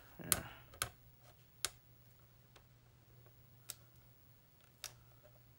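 Sharp, irregular clicks and taps of a clear plastic pen case being handled and opened: about five distinct clicks spread over a few seconds, with a brief rustle at the start.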